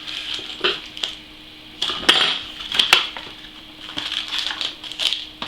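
Small hard parts and packaging of a CPU water block kit being handled as the box is unpacked: irregular clicks, rattles and clatters, loudest about two to three seconds in, over a faint steady hum.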